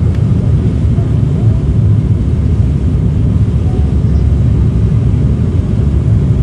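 Steady, loud drone of a propeller airliner's engines and airflow heard from inside the passenger cabin in flight, mostly a low rumble.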